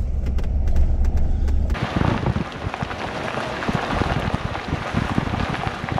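Thor Magnitude Class C motorhome driving on a gravel highway. At first its engine and road drone are heard low inside the cab. A little under two seconds in, the sound changes abruptly to the front tyre rolling over loose gravel, heard close to the wheel: a dense crackle of stones with wind rush.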